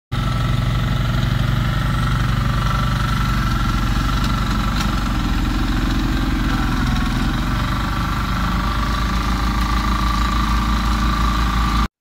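Diesel engines of mini excavators and a tracked mini dump carrier running steadily at a construction site, a low even hum with a thin steady whine above it; the sound cuts off suddenly near the end.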